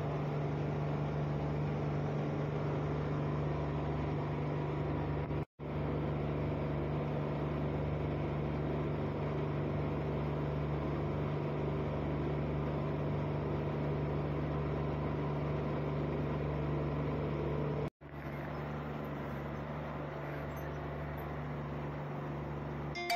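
Tractor diesel engine running steadily with a low, even drone, broken twice by brief dropouts.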